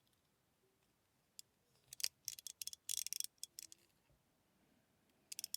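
Light, scattered clicks and ticks of a small screwdriver and screws working into a fidget slider's clear plastic body, in a cluster about two to three seconds in and again near the end.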